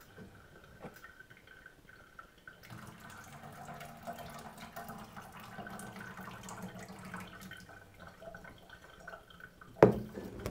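Hot pasta-cooking water poured from a pot into a stainless steel sink, the lid held ajar as a strainer, splashing steadily for about five seconds. Near the end a single sharp knock, the loudest sound, as the pot is set back down on the counter.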